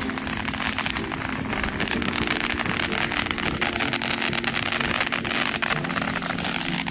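A long string of firecrackers going off in one continuous rapid crackle of tightly packed pops.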